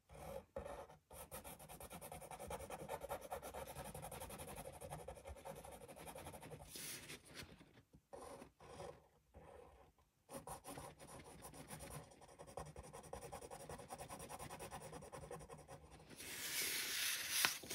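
Black felt-tip pen drawing on paper: a faint, scratchy stroking sound that breaks off for short pauses about halfway through, with a louder noisy stretch near the end.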